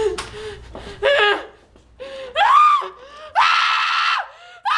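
A woman screaming: four high-pitched screams in a row, the third held longest and steadiest, the last running on past the end.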